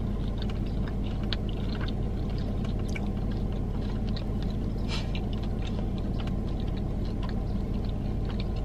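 Close-up chewing of crispy fried chicken skin, with scattered soft mouth clicks, over the steady low hum of the car she sits in.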